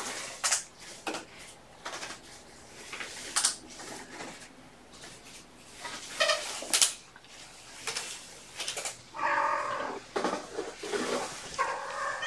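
Cat meowing several times, mostly in the second half, among scattered clicks and knocks.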